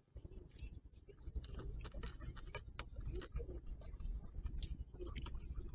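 Lamb and onions grilling on a wire mesh grill, with fat crackling and popping in short, irregular clicks.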